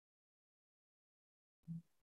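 Near silence: the audio is cut to dead quiet, broken only by one brief faint low sound about three quarters of the way through.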